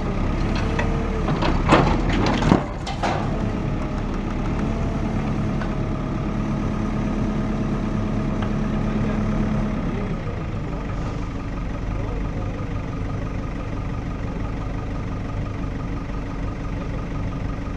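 Heavy diesel engine of a demolition machine running steadily, with a few loud knocks about two seconds in. A steady higher note rides on the engine for several seconds in the middle, then the engine settles to a lower note.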